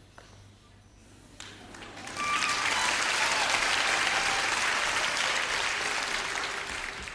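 Audience applauding, starting faintly about a second and a half in, swelling to full applause by about two seconds in, and easing off slightly near the end.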